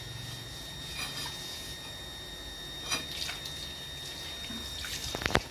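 Liquid pouring and trickling from an upturned plastic bottle into the cavity of a whole pig in a plastic basin, with a few sharp knocks near the end.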